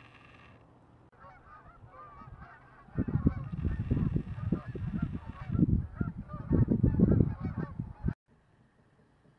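A flock of geese honking, many overlapping calls. From about three seconds in, loud low rumbling bursts sit under the calls. It all cuts off abruptly a little after eight seconds.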